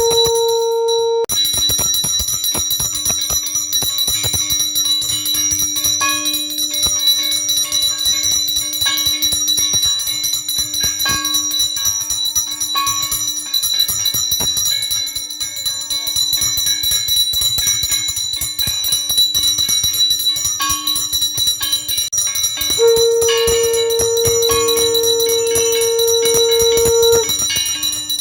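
A puja hand bell rung rapidly and without a break, its ringing hanging on. A steady held tone joins it for about four seconds near the end.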